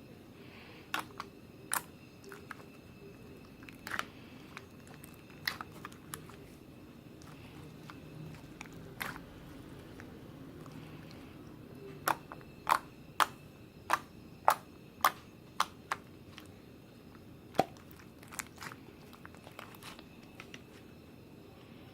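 Crisp crunching and biting in a small quiet room: sharp single cracks at irregular intervals, coming in a quick run of about seven between twelve and sixteen seconds in.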